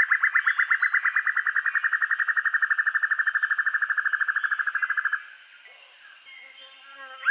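Banded broadbill (sempur-hujan rimba) giving its long, rapid trill: a fast run of evenly spaced notes that rises in pitch, then holds level and stops abruptly about five seconds in. A new trill starts right at the end.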